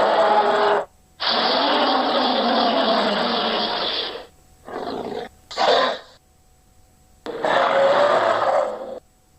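Monster growls made as sound effects: rough, gravelly bursts, a long one of about three seconds, two short ones around the middle, and another of nearly two seconds near the end.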